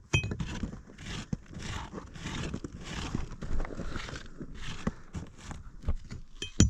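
Irregular scraping and rustling of a caver shifting against rock in a tight dig, with a sharp ringing clink of a metal tool striking rock at the start and again near the end, as rock knobs are chipped off the passage wall.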